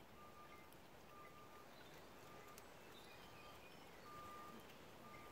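Near silence: faint outdoor ambience, with a faint high note repeating every second or so.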